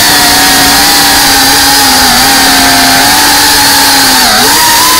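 FPV racing quadcopter's brushless motors and propellers whining loudly and steadily, heard close from the onboard camera. The pitch dips briefly and recovers about four seconds in.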